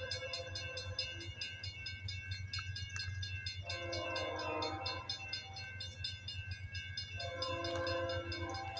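Horn of an approaching Norfolk Southern ES44AC diesel locomotive sounding three blasts: one ending about a second and a half in, a short one near the middle, and a long one near the end. Under it there is a steady low rumble and a fast, even high-pitched ticking.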